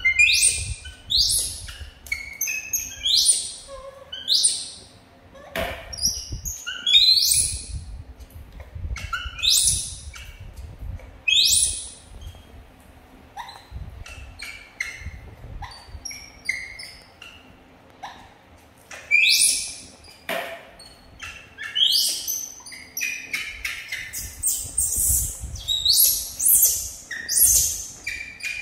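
Baby macaque giving short, high-pitched squeals again and again, each one dropping in pitch, in clusters of two or three, typical of begging while waiting for food. Soft rustling and handling noise underneath.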